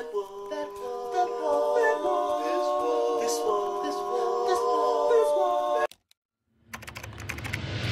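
Male a cappella group holding close-harmony chords without words, cut off abruptly about six seconds in. After a short silence, a crackling noise over a low hum comes up near the end.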